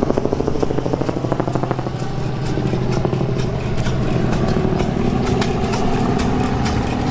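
An antique tractor engine running, with a fast, even firing beat that eases about two seconds in into a steadier hum.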